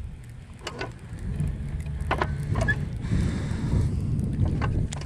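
Low rumble of wind buffeting the microphone, growing stronger about a second in, with a handful of sharp clicks and knocks scattered through it.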